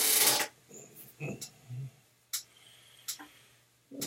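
Close-up breath and kissing sounds as a man nuzzles a kitten's head: a loud breathy rush at the start, then several short, sharp lip smacks.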